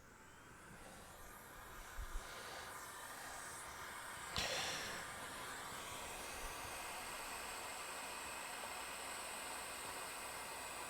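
Hot air rework station blowing air, a hiss that builds over the first couple of seconds and then holds steady, with a short louder burst about four seconds in.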